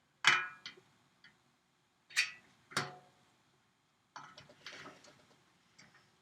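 A series of separate sharp metallic clinks and knocks from hand tools and aluminium parts being handled and set down. There are two near the start, two about two to three seconds in, and a quick cluster a little past four seconds. None is the rapid hammering of a rivet gun.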